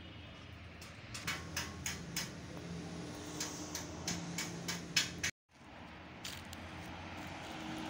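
A series of about ten sharp, irregular clicks and knocks over a steady low hum. The sound cuts out abruptly about two-thirds of the way through, then the steady hum resumes with a single click.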